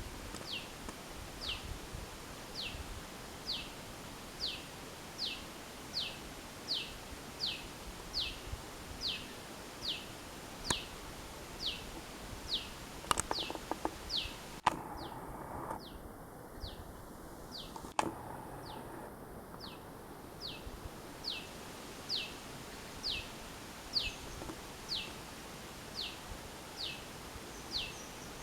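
A small bird calling a steady series of short, high notes, each sliding down in pitch, about one a second, with a few faint clicks partway through.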